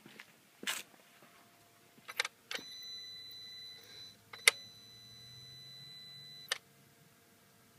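Electrical noises from a switched-off 2013 VW GTI MK6: several sharp clicks, then a steady high beep about two and a half seconds in. A loud click cuts in near the middle, the beep carries on with a faint low hum under it, and it all stops with a final click about two seconds later. The cause is unknown to the owner.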